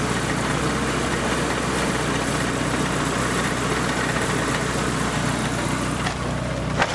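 1990 Nissan 240SX's KA24E 2.4-litre single-overhead-cam four-cylinder idling steadily, freshly filled with new oil and a new oil filter. A brief click sounds near the end.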